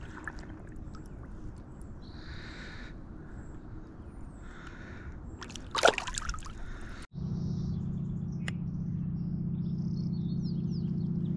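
Outdoor lake ambience with birds calling, and one sharp sudden noise about six seconds in. After an abrupt cut about a second later, a steady low rumble runs under more bird chirps.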